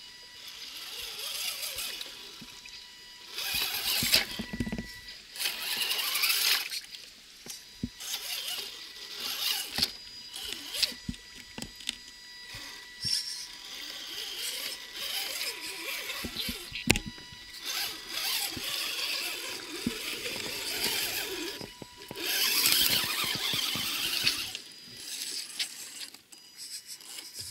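Electric motor and geared drivetrain of a radio-controlled scale rock crawler whining in stop-start bursts as it crawls through shallow water and over rocks, with sharp clicks and knocks of tyres and chassis on stone.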